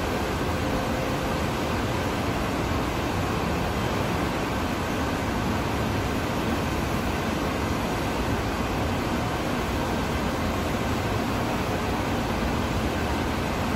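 Steady factory-hall background noise: an even mechanical hiss and rumble with no separate knocks or other distinct sounds.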